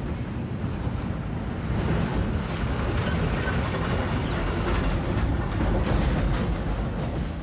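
Steady low rumble of passing vehicle traffic, growing a little louder about two seconds in.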